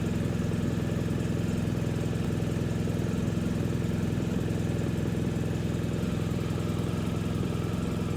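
BMW R1250 GS Adventure's boxer-twin engine idling steadily.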